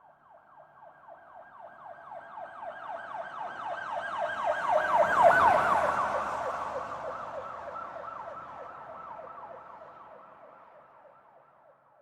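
Police car siren in a fast yelp, rapid rising-and-falling wails about four a second. It grows louder to a peak about five seconds in, then fades away as the car passes.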